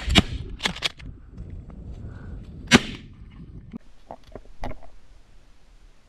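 20-gauge shotguns firing at flying pigeons: a sharp shot right at the start and another just after, more cracks within the first second, and another loud shot almost three seconds in. Fainter short knocks come near the end.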